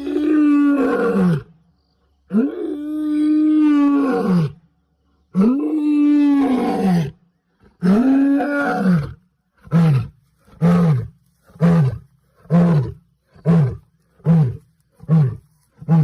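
A big cat roaring: four long, moaning roars, each rising and falling in pitch, followed by a run of about eight short grunting roars, evenly spaced under a second apart.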